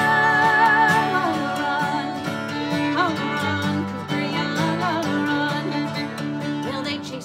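Bluegrass band music: the singers' held last note ends about a second in, then a fiddle plays the melody over a strummed acoustic guitar.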